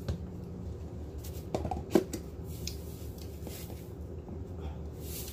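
Plastic spice jars and a salt canister being handled: scattered clicks and light knocks, with one sharper knock about two seconds in, over a faint steady hum.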